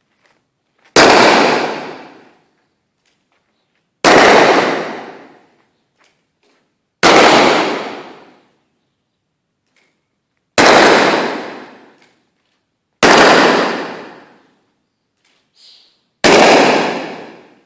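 Six revolver shots fired one at a time, roughly three seconds apart, each a sharp loud bang that rings out and dies away over about a second.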